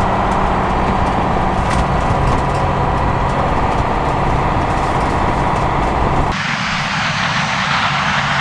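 Heavy farm machinery running steadily with a deep engine hum. About six seconds in, the sound cuts abruptly to a brighter, hissing mechanical whir.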